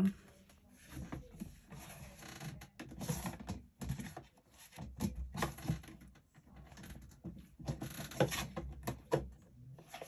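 Paper and card being handled on a desk: irregular rustling and scraping with light taps.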